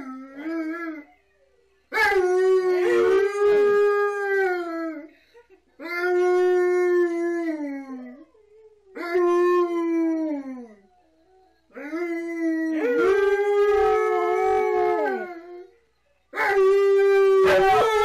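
Dogs howling together: an Alaskan malamute and huskies, in five long howls separated by short pauses, with two voices overlapping at times and several howls sliding down in pitch at the end.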